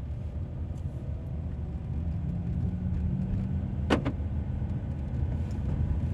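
Steady low rumble of a car driving on the road, engine and tyre noise, with one sharp knock about four seconds in.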